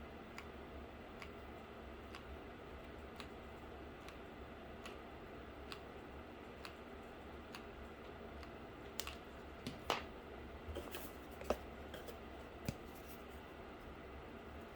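Faint clicks and taps of hands working cardboard and craft tools at a desk, with light ticks about once a second and a cluster of sharper clicks about nine to thirteen seconds in, over a steady low hum.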